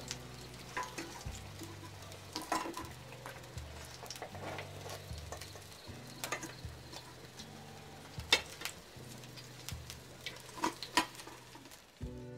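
Fish pieces sizzling as they fry in hot oil in a kadai, with a metal spatula scraping and clinking against the pan as the fried pieces are lifted out. A few louder sharp clinks, the loudest about two thirds of the way through.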